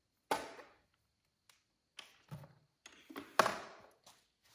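A handful of sharp knocks and taps, each dying away quickly, from a motorcycle front fender and its mounting bolts being handled and test-fitted to the fork. The loudest knock comes about three and a half seconds in.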